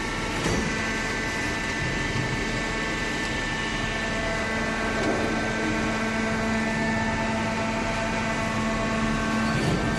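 Hydraulic waste paper baler running: its motor and hydraulic pump give a steady hum with several held tones. There is a light knock about half a second in and another near the end.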